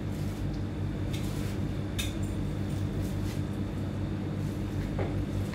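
Plastic parts of a pedestal fan knocking and clicking a few times as they are handled and fitted together, over a steady low hum.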